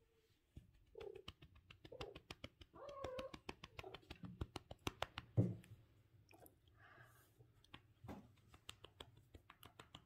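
Domestic cat giving several short calls over a run of quick clicks and taps. About five seconds in, a single heavy thump, a cat landing on a sideboard, is the loudest sound.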